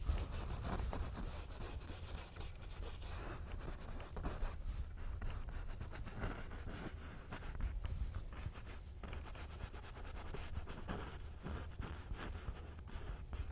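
Bristle brush scrubbing oil paint onto a stretched canvas: a steady run of short, irregular, scratchy rubbing strokes.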